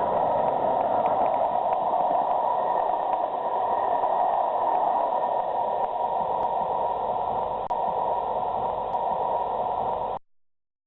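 SNCF 241 P steam locomotive and its train passing close by: a loud, steady rushing noise of running gear, wheels and steam. It cuts off abruptly near the end.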